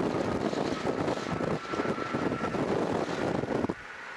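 Car driving at highway speed, its wind and road noise rushing and buffeting the microphone. It cuts off suddenly near the end, leaving a quieter, steady cabin hum.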